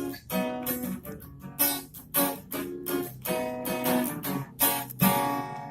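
Background music: an acoustic guitar strumming chords, about two strums a second.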